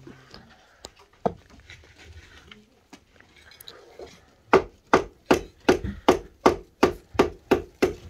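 Hammer blows on timber beam formwork: a few scattered light knocks, then, about halfway through, a steady run of about ten blows at nearly three a second.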